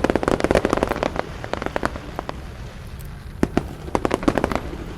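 Fireworks going off in a rapid crackle of sharp cracks, densest in the first second, thinning out, then a second cluster of cracks near the end.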